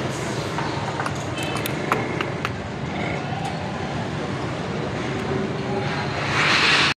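Steady street traffic noise with a few light clicks a second or two in, growing louder near the end.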